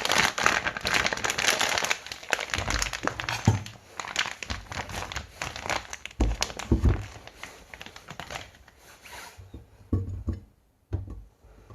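Plastic wrapping crinkling and being torn, dense at first and then sparser, with a few dull knocks in between.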